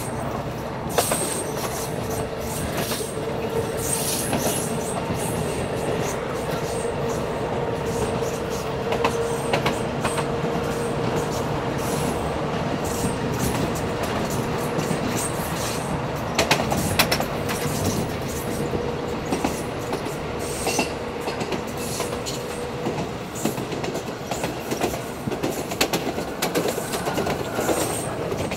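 A Budapest HÉV MXA electric suburban train running on its track: a steady rolling rumble with irregular clicks from the wheels on the rails, and a steady whine over it that fades out near the end.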